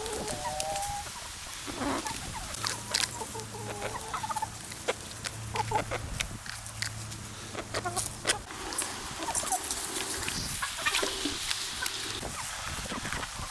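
Backyard hens clucking, with many short sharp clicks scattered through.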